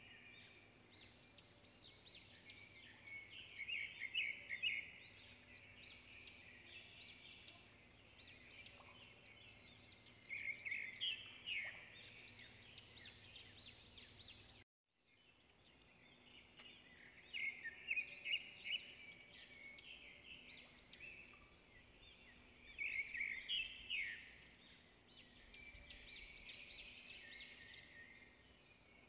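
Small birds chirping and twittering in quick clusters of short calls, with a brief cut to silence about halfway through.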